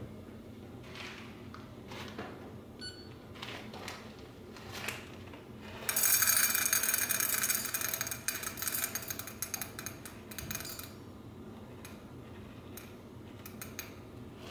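Whole coffee beans poured from a plastic bag into a dosing cup: a dense, rapid rattle of beans that starts about six seconds in and tapers off over several seconds, with lighter rustling and clicks from handling the bag before and after.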